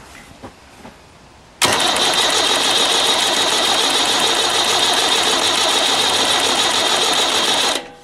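Tractor starter motor cranking the engine for about six seconds, starting abruptly a second and a half in and cutting off near the end. The engine turns over without firing because the stop control is out, and the cranking load pulls the battery down to about 9.8 volts.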